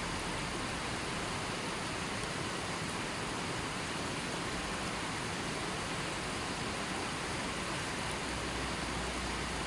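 Stream running over rocks and stones: a steady, even rush of water.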